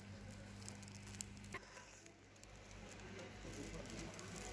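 Faint room tone: a low electrical hum that stops about one and a half seconds in, with scattered light ticks and rustles.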